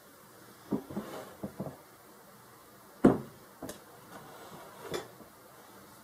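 Kitchen items being moved and set down on a countertop, a glass carafe and a ceramic canister among them: scattered light knocks and clicks, with one sharp knock about three seconds in.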